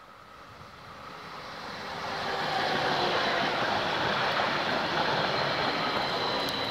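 Multiple-unit passenger train approaching and passing at speed: a rushing noise of wheels on rails that grows steadily for about two and a half seconds, then stays loud as the cars go by, with a faint high whine over it, easing off near the end.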